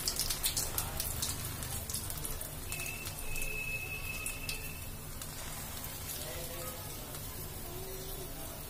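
Urad dal vadas sizzling and crackling in hot oil in a kadhai, just after being dropped in. The spitting is densest at first and settles into a softer, steady crackle within a couple of seconds.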